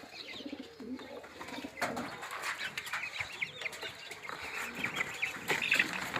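A flock of chickens calling: soft low clucks in the first second or so, then many short, high peeps, likely from chicks, that grow busier over the last few seconds.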